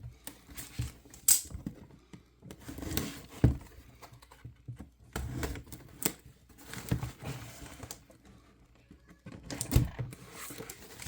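Package wrapping being pulled off and handled by hand: irregular clicks, taps and knocks with rustling of the packing material, pausing briefly near the end.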